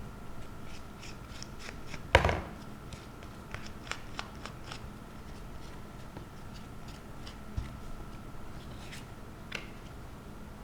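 Paper being worked by hand: scattered small clicks and rustles, with one sharp knock about two seconds in.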